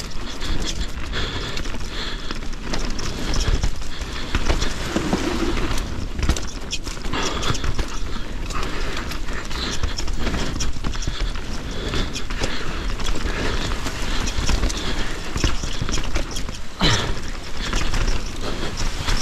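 170mm-travel enduro mountain bike riding down rough singletrack: tyres and frame clattering and knocking over rocky ground in a steady stream of sharp rattles, with wind rushing on the microphone.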